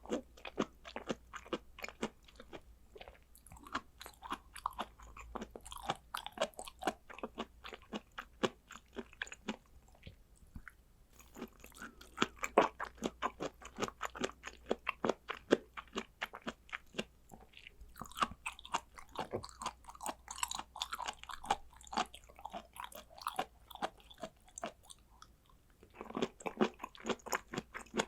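Close-miked chewing of raw blood clam (ark clam) sashimi: a rapid, continuous run of small wet clicks, several a second. There are brief lulls about ten seconds in and again near the end.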